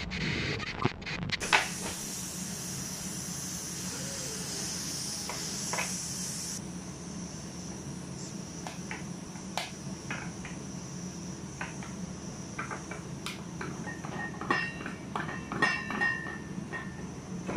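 A 50-litre pressure cooker being opened: a steady high hiss for about five seconds that stops suddenly, then scattered metallic clicks and clanks, with a brief ringing near the end, as the clamped metal lid and its crossbar are worked loose.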